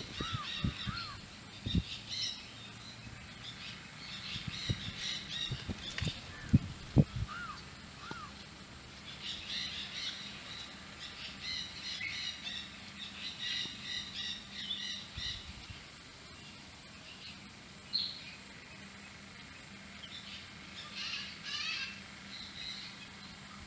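Wild birds chirping in bursts of rapid high notes, with a few short rising-and-falling calls. Several sharp knocks in the first seven seconds, the loudest about six and seven seconds in.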